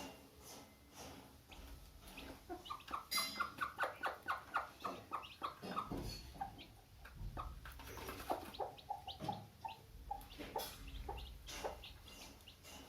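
Domestic hen clucking: a quick run of short, evenly spaced clucks, then a slower, lower series of clucks.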